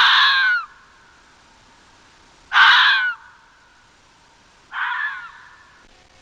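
Fox giving three harsh, rasping calls about two seconds apart, the last one quieter.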